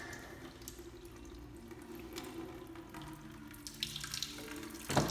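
Water running and trickling through a homemade transfer setup into a container. A sharp knock comes just before the end.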